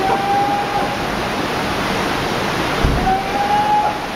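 Tsunami floodwater rushing and churning in a steady loud roar. A thin high tone sounds twice, each held about a second, and a dull thump comes about three seconds in.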